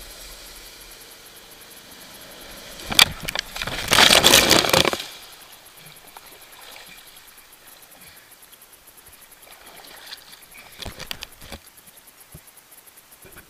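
Wakeboarder falling while towed: the steady rush of the ride, then a loud splashing crash into the lake about three to five seconds in, the water churning over the helmet camera. Afterwards only quiet water lapping as the rider floats.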